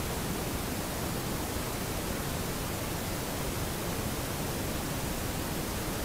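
Steady, even hiss with nothing else standing out.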